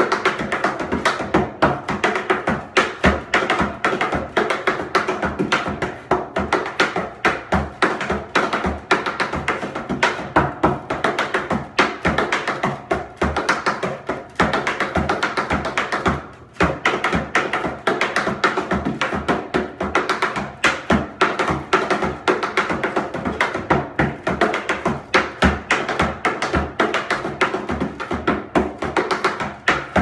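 Metal taps on tap shoes striking a plywood tap board in a fast, continuous rhythm: a tap time step danced at speed. The strikes break off briefly about halfway through, then resume.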